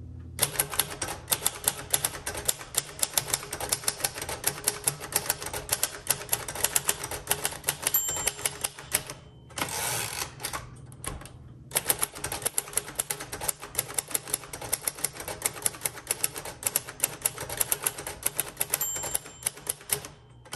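A 1958 Royal Aristocrat manual portable typewriter being typed on at a brisk, even pace, each keystroke a sharp clack. About eight seconds in, and again near the end, a short high ding of the margin bell rings, followed by a brief pause and a rushing sweep as the carriage is returned before typing resumes.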